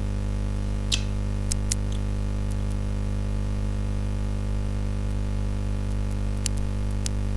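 Steady electrical mains hum on the recording, with a few sharp clicks scattered through it.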